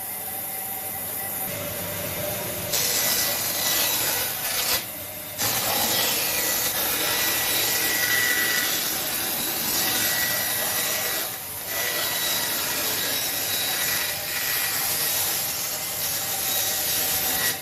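Wood being sawn by hand: a continuous rasping scrape, broken by a short pause about five seconds in and again around eleven and a half seconds.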